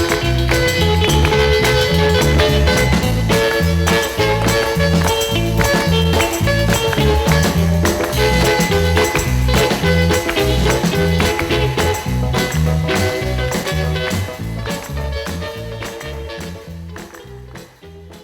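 Background music with a steady bass beat and percussion, fading out near the end.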